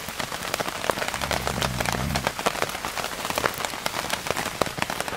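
Heavy rain falling steadily, a dense spray of drops. A little after a second in, a low snore is heard for about a second.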